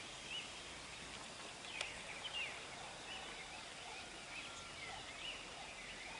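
Birds chirping and whistling in many short calls over a faint steady background hiss, with a single sharp click about two seconds in.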